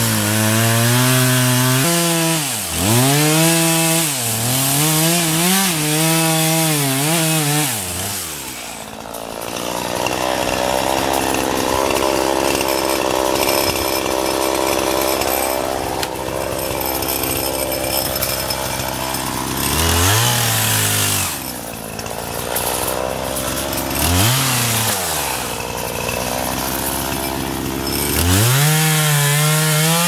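Gas chainsaw felling a large pine: the engine is revved up and down several times, then held at high revs in the cut for about ten seconds, drops back and picks up again twice, and revs again near the end.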